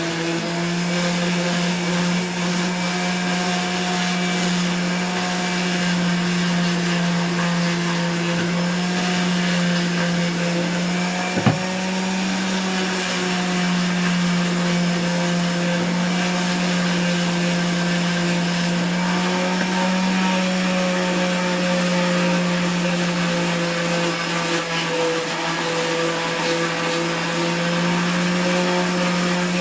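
An electric motor runs steadily for the whole stretch, a constant hum with a higher whine, with one sharp knock about eleven seconds in.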